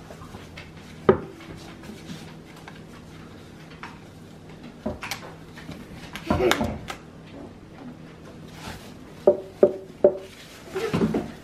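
Thin plastic wrapping crinkling and rustling in short bursts as it is pulled off a new ukulele, with a few sharp handling knocks, several of them close together near the end.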